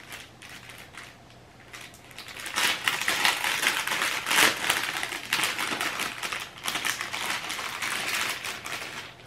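A plastic balloon packet crinkling and rustling as it is opened and handled by hand. It is a dense crackle that starts about two and a half seconds in and carries on nearly to the end.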